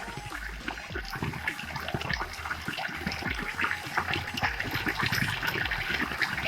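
Running water trickling and splashing steadily, with many small irregular splashes.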